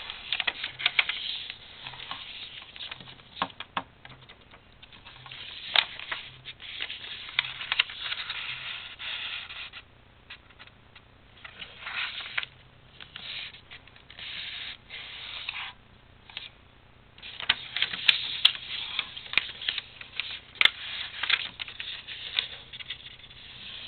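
A sheet of paper rustling and crinkling as hands fold it and run creases flat against a tabletop. It comes in several bursts of rubbing and scraping, with sharp crackles and short pauses between the bursts.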